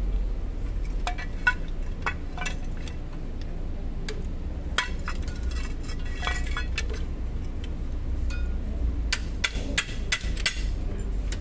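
Light metallic clinks and clicks of pliers working the steel return springs and shoe hardware of a pickup's drum brake, irregular and coming in small clusters, busiest near the end, over a low steady rumble.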